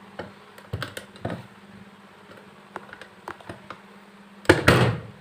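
Ceiling fan housing parts being handled and fitted together during reassembly: a series of light knocks and taps, then a louder clatter lasting about half a second near the end.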